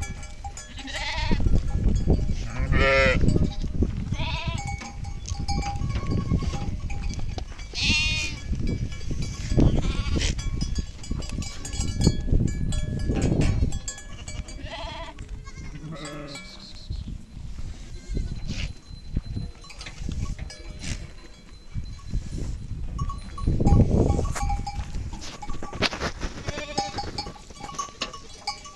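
Livestock neck bells clinking and ringing from a flock, with bleating calls several times in the first ten seconds.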